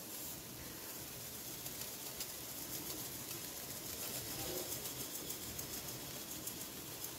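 Faint, steady hiss of granulated sugar being poured into a kadhai of fig halwa roasting on low heat.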